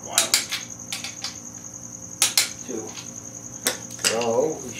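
Sharp metallic clicks, several in quick pairs, from a click-type torque wrench releasing as the main bearing cap bolts of a Ford 302 V8 are rechecked at torque.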